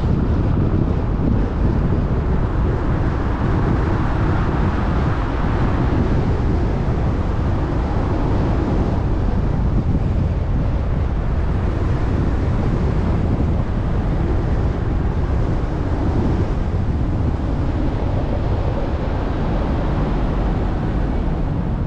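Steady low rumble of a car driving at city speed, with road noise and wind noise on the microphone.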